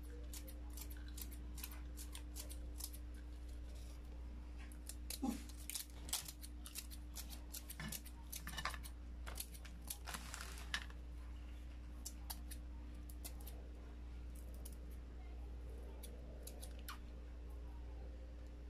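Scissors snipping dried nori seaweed into thin strips: a quick, uneven series of light snips that thins out in the last few seconds, over a steady low hum.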